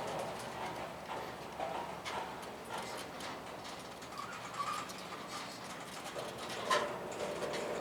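CSX freight train rolling past at a crawl, its wheels clicking and knocking irregularly over the rail joints, with a brief squeal about four seconds in.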